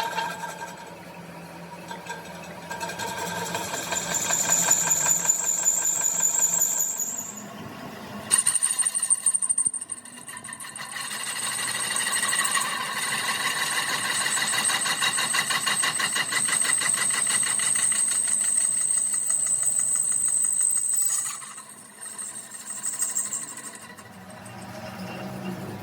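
A power tool's motor running under load with a high whine, dropping out briefly about eight seconds in and again about twenty-one seconds in.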